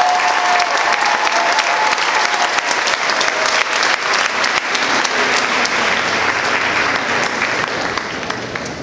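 Stadium crowd applauding, a dense clatter of many hands clapping that dies down toward the end.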